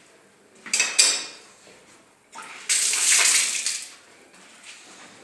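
Water from an opened tap, starting with two sudden splashes about a second in, then a hissing gush for about a second and a half.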